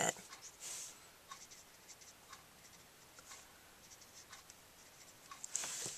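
Felt-tip of a Copic 0 colorless blender marker scratching lightly over cardstock in short squiggling strokes, with a louder rustle near the end.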